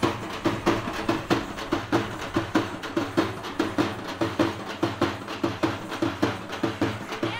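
Drums beaten in a fast, steady rhythm of sharp, cracking strokes, several a second, accompanying a street tiger dance.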